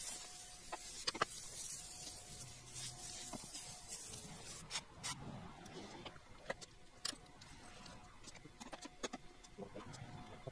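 Scattered clicks and light knocks of hand tools and parts being handled during an engine teardown, with a hiss over the first few seconds.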